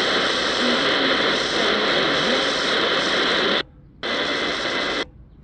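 XHDATA D-109WB shortwave receiver giving a steady static hiss on the 31-metre band. The audio cuts out briefly twice, about three and a half seconds in and again near the end, as the radio mutes while stepping to the next scanned frequency.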